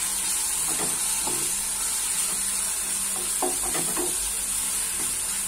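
Ginger-garlic paste and browned onions frying in hot oil in a nonstick pan, sizzling steadily, while a black plastic spatula stirs and scrapes through them, in short strokes about a second in and again around three and a half to four seconds.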